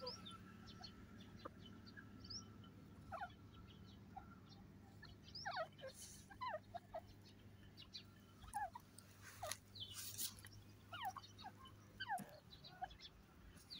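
Grey francolin giving soft, short chirping notes that slide downward in pitch, scattered irregularly.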